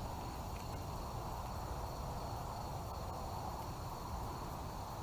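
Steady outdoor background noise with a low rumble, and a faint, steady, high insect trill.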